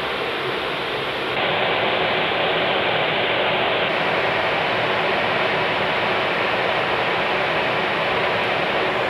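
Steady rushing noise inside an airliner's flight deck in cruise: airflow and ventilation hiss with no tones standing out. It gets a little louder about a second and a half in.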